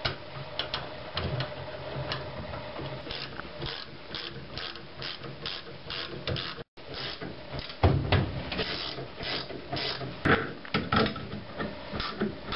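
Ratchet wrench clicking in quick repeated strokes as it winds down the threaded rods of a screw-type coil spring compressor, compressing the spring on a rear shock absorber strut.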